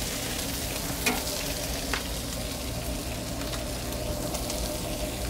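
Turkey bacon strips frying on a Blackstone flat-top griddle: a steady sizzle with a few small pops.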